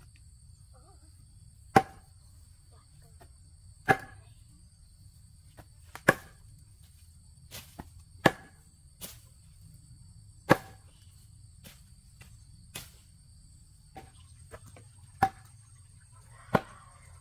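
A run of single sharp blows of a tool on wood, about one every two seconds with a short pause near the end, as in chopping or driving fence stakes. Behind them a steady high insect drone.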